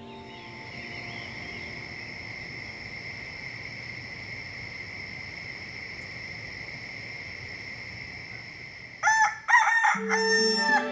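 A steady high-pitched tone for about nine seconds, then a rooster crowing loudly near the end: one cock-a-doodle-doo in three or four rising and falling syllables.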